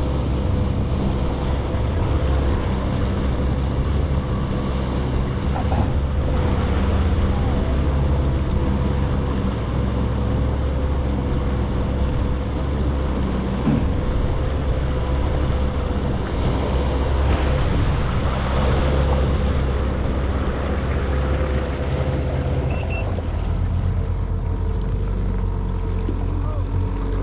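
Jet ski engine running steadily under way, with water and wind noise; near the end the engine note drops and changes.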